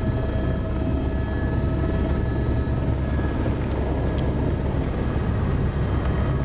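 Helicopter's turbine engine and main rotor running, heard from inside the cabin while it sets down: a steady whine over the low, rapid beat of the rotor.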